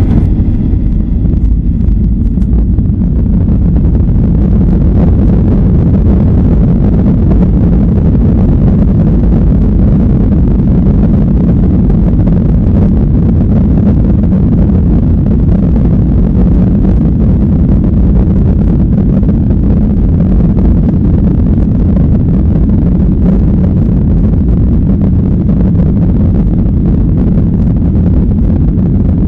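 Steady, loud low rumble of a Boeing 737's engines and airframe, heard from inside the passenger cabin during the takeoff run.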